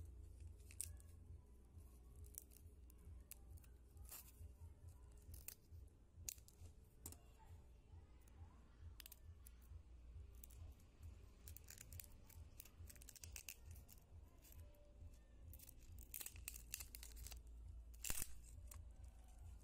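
Faint scratching, ticking and small clicks as metal tweezers pry at a shattered camera LCD screen, its cracked glass and thin metal frame, with one sharper click near the end and a low steady hum underneath.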